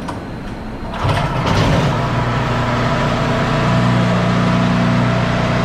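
Champion 4000-watt generator's 196cc engine running steadily, getting louder about a second in. It is running smoothly after its clogged carburetor was cleaned.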